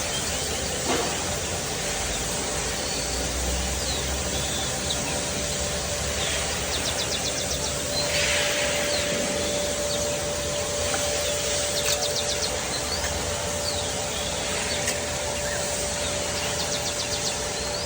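A steady mechanical hum of a running engine, with birds chirping over it. A steady high tone joins about eight seconds in.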